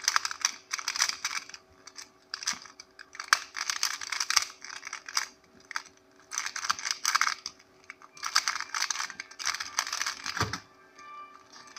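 A Qiyi Square-1 puzzle being speedsolved by hand: quick runs of plastic clicking and clacking as its layers are turned and sliced, broken by a few short pauses, with a low thump near the end.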